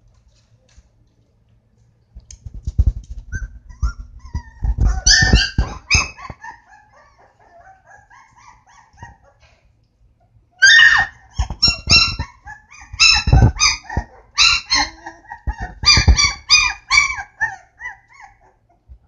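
Pit bull puppies yipping and barking at play: a few high whines and yaps, then after a lull a quick run of short, sharp, high yaps. Scuffling and soft thumps from the puppies' paws run underneath.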